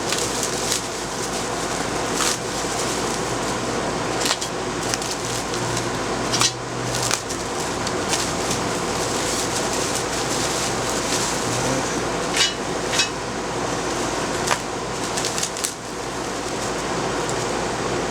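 Steady whirr of an outdoor air-conditioning unit, with scattered clicks and knocks of parts and packaging being handled, about seven or eight in all.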